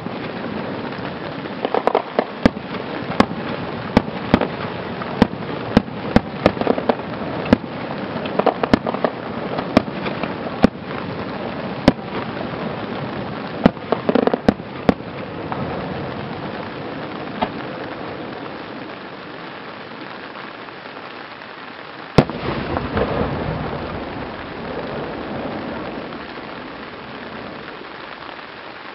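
Aerial firework shells bursting: many sharp cracks through the first half, then a single loud bang a little over twenty seconds in, followed by a rumbling echo. A steady hiss of rain runs underneath.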